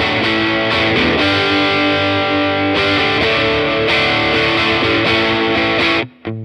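A Yamaha Revstar electric guitar with P90 pickups, played through a Laney CUB-Super 12 15-watt all-tube combo with the gain turned up for a driven, slightly distorted tone: ringing chords and held notes that change every second or so, with a brief break near the end.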